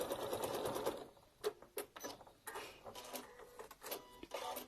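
Sewing machine stitching at a rapid, even pace, stopping about a second in; then scattered small clicks and rustles of the fabric and machine being handled.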